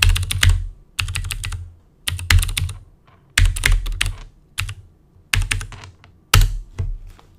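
Computer keyboard typing in about seven short runs of quick keystrokes, roughly one run a second, each with a dull thud from the desk beneath.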